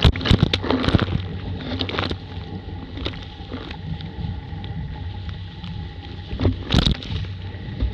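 Laser dinghy's hull driving through chop, water rushing along the side, with wind buffeting the microphone. Heavy spray strikes come in the first second and again near the end.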